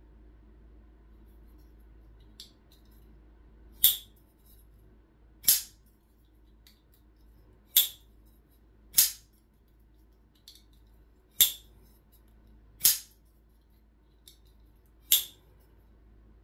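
Folding pocket knife being flicked open and snapped shut by hand: seven sharp metallic clicks at uneven gaps of one to two and a half seconds, each the blade snapping into place, with a few faint clicks between.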